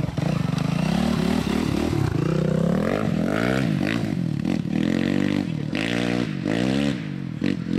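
Yamaha WR450 dirt bike with an Athena 480 big-bore kit and FMF exhaust, its single-cylinder four-stroke engine running hard under throttle. It climbs in pitch for about three seconds, then rises and falls several times as the rider works the throttle and gears.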